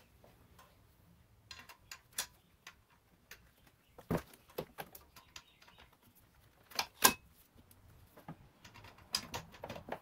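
Scattered metal clinks and taps of a serpentine belt tool being worked against the belt tensioner deep in the engine bay, the loudest about four and seven seconds in. The tool is not seating on the tensioner at its awkward angle.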